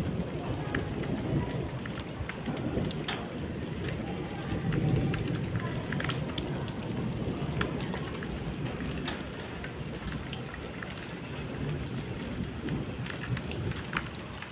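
Steady rain falling, with many scattered drop taps and a low rumble of thunder that swells about five seconds in, then slowly eases.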